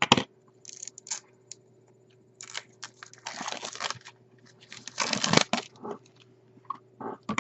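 Packaging being torn open and crinkled by hand in several short bursts, the longest about three and five seconds in.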